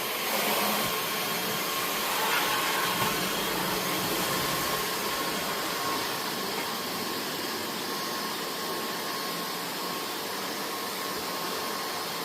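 Vacuum cleaner running steadily, a whooshing hiss with a steady whine, a little louder in the first few seconds.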